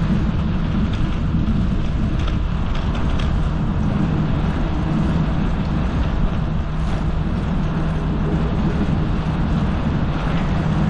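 Steady low rumble and hiss of riding a bicycle, with wind and tyre noise on the camera's microphone and traffic droning on the elevated road overhead, over a steady low hum.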